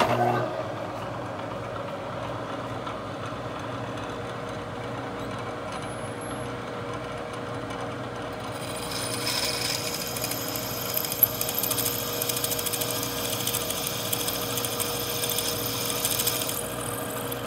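Milling machine spindle running as a drill bit bores out a stripped threaded hole in a dirt-bike wheel hub, ready for tapping M6×1 for a helicoil. The motor hum is steady, and from about nine to sixteen seconds in a harsher, brighter cutting sound rises over it as the bit bites, with one sharp click partway through.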